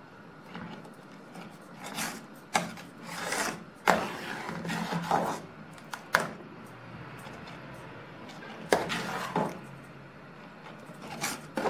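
Steel ladle stirring thick urad dal porridge in an aluminium pot, scraping and now and then knocking against the pot's sides and bottom in irregular strokes.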